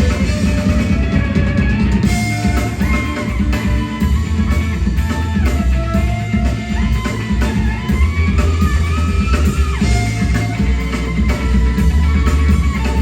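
Live rock band playing loudly: electric guitar lines that slide and bend between notes over drum kit and bass.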